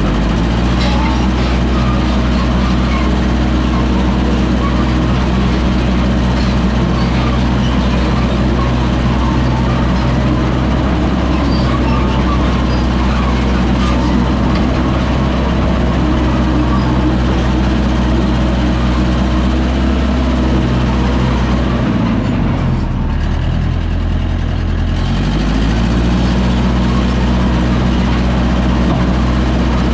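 Massey Ferguson crawler dozer's engine running steadily while working. Its revs drop about two-thirds of the way through, then rise back a few seconds later.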